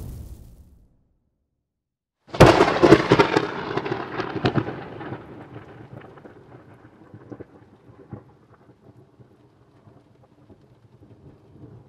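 Music fading out, then after a short silence a sudden loud crash with crackling that dies away over about four seconds, leaving faint scattered crackles.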